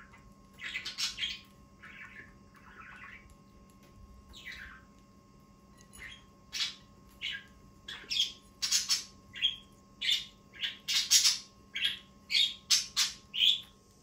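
Pet parakeets chirping and squawking in short, high calls, sparse at first and then coming quickly one after another from about six seconds in.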